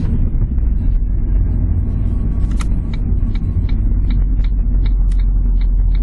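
Car engine and road rumble heard from inside the cabin, and about two and a half seconds in the turn-signal indicator starts ticking at an even pace, about three clicks a second.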